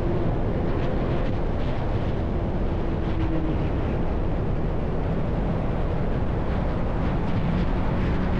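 Yamaha R1 inline-four with an SC Project exhaust running at a steady pitch while riding, mixed with a steady rushing noise.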